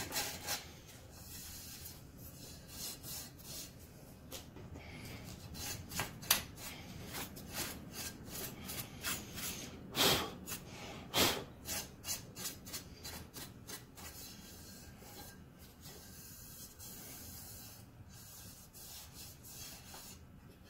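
Irregular strokes of sandpaper and a file scraping on the cast-metal blade guard of a Delta compound miter saw, smoothing off burrs, with a brush sweeping off the sanding dust. The two sharpest scrapes come about ten and eleven seconds in.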